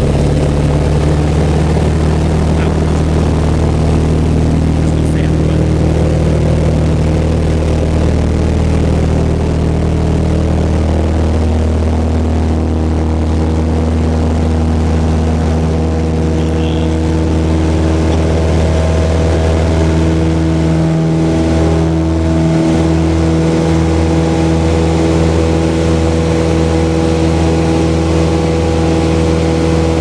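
Light aircraft's engine and propeller at takeoff power, heard from inside the cockpit: a loud, steady drone through the takeoff roll and lift-off.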